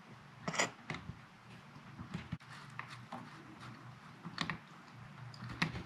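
Light clicks and rustling of hands working electrical wires, disconnecting the black wire from a hardwired smoke detector's wiring harness. A few sharper clicks stand out among the fainter handling noise.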